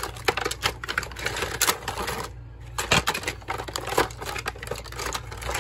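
Plastic toys clicking and clattering against each other and the bin as a hand rummages through a toy bin, in quick irregular knocks.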